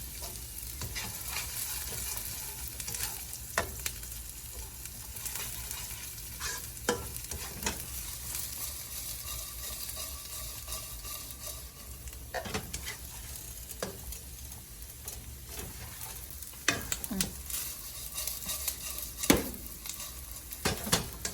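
Chicken 65 with curry leaves and chilies sizzling in a pan over high heat, stirred with a spatula that knocks and scrapes against the pan every few seconds.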